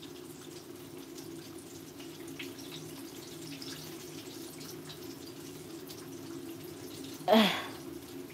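Chicken frying in hot oil in a pot: a faint steady sizzle with scattered small crackles, over a steady low hum. About seven seconds in, a short voice sound falls in pitch.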